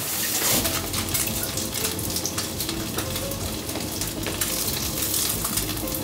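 Food frying in hot oil in a pan, a steady sizzle with many small crackles.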